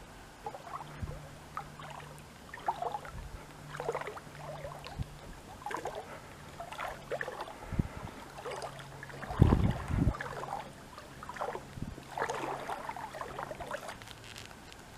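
Water splashing and lapping with a paddle dipping in irregular strokes from a small paddled boat. A couple of dull knocks come about two-thirds of the way in, over a faint steady low hum.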